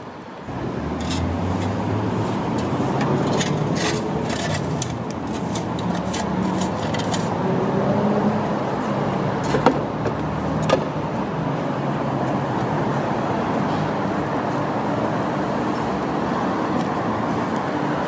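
Motor vehicle engine running steadily amid city traffic noise, with a run of light clicks in the first several seconds and two sharp knocks around the middle.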